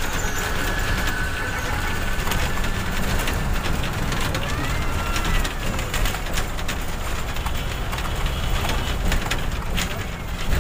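Steady rumble of wind buffeting the microphone, mixed with road and traffic noise from a moving vehicle. A few faint thin tones rise and fall in the first half.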